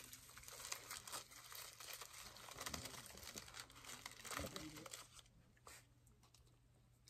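Faint crinkling of a plastic food wrapper around a chicken roll as it is handled: many small crackles for about five seconds, then dying down.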